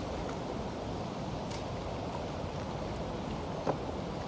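Steady rushing outdoor noise of wind and choppy water. There is a faint click about a second and a half in and a small knock near the end.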